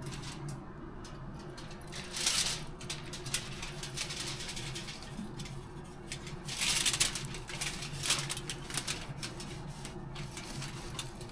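Kitchen handling sounds while food is being prepared: crinkling rustles and small clicks and taps, with two louder rustling spells about two seconds and seven seconds in, over a steady low hum.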